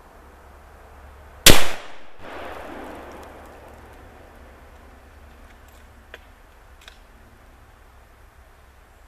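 A single shot from a Savage Axis bolt-action rifle in 7.62x39 about a second and a half in, loud and sharp, with an echo that dies away over the next two seconds. Two faint clicks follow a few seconds later.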